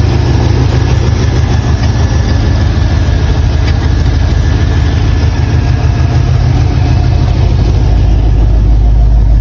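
1987 Pontiac Grand Prix's engine running loud, with a deep, rapidly pulsing exhaust note; about eight seconds in the note drops lower.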